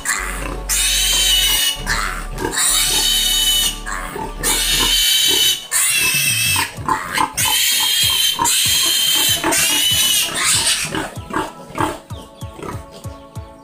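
Piglet screaming in long, loud, piercing squeals, one after another, while it is held up during castration. Near the end the screams give way to shorter squeals and grunts.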